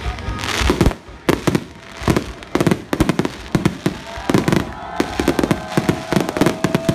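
Aerial fireworks shells bursting in a rapid string of sharp bangs and crackles, growing denser after about two seconds into near-continuous reports.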